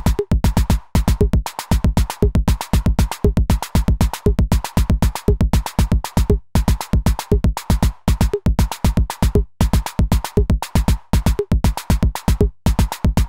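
Electronic drum sounds from a sequenced synth or drum-machine voice, played in a fast, steady pattern: a deep kick-like hit about four or five times a second, with a higher blip accent roughly once a second.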